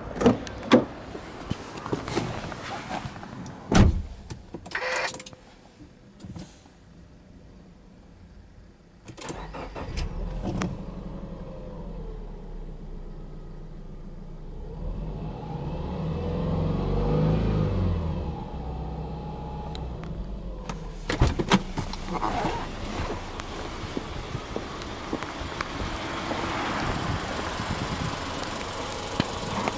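Subaru Impreza Anesis 2.0i-S flat-four boxer engine. After a few sharp clicks and knocks, it starts about a third of the way in and settles to idle. Around the middle it is revved up slowly and back down once, and after a few more clicks it idles on steadily.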